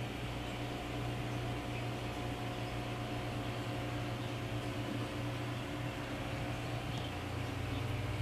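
Aquarium pump running: a steady low electrical hum with an even hiss over it, unchanging throughout.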